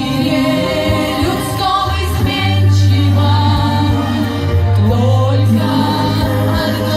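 Girls' voices singing a song together over a backing track with a steady, heavy bass line.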